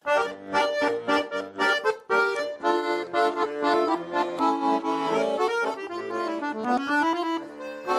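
A Russian garmon (button accordion) playing an instrumental passage of chords and melody, starting suddenly at the outset.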